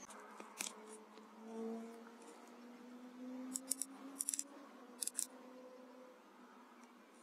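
Faint, sharp metallic clicks, several of them, some in quick pairs, over a faint low steady hum that rises slightly in pitch.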